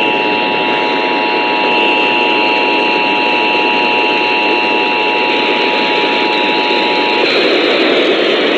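Emergency Alert System attention signal: a steady, loud multi-tone alert sounding over a constant broadcast hiss. It cuts off about seven seconds in, leaving the hiss.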